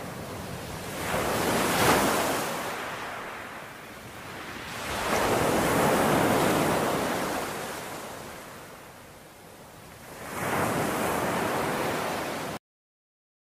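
Small waves washing in over a sandy beach: the surf swells and fades three times, about every four to five seconds, then cuts off suddenly shortly before the end.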